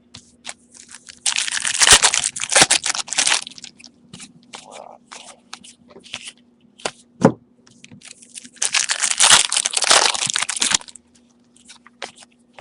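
Trading-card pack wrappers being torn open and crinkled in the hands, in two stretches of dense crackling, with light clicks and rustles of cards being handled in between.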